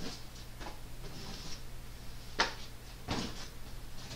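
Cardboard box and packing being handled: rustling and scraping, with two sharp knocks a little past halfway.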